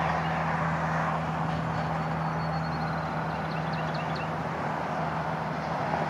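Steady outdoor background noise with a constant low hum, and small birds chirping faintly around the start and the middle.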